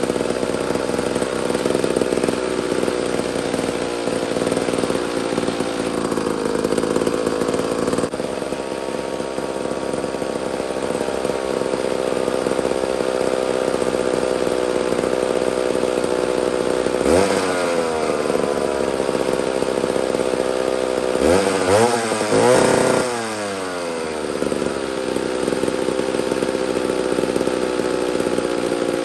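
McCulloch 1-42 chainsaw's two-stroke engine idling steadily on its newly fitted condenser, revved briefly twice, about halfway through and again a few seconds later, each time rising in pitch and dropping back to idle.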